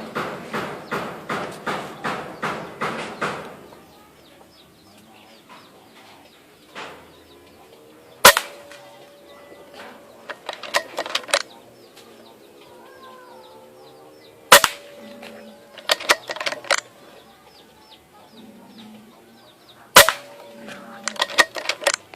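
Multishot sidelever air rifle fired three times, each shot a sharp crack followed a second or two later by a quick cluster of clicks as the side lever is cycled to cock it and index the next pellet. In the first three seconds there is a rapid run of rhythmic strokes, about three a second.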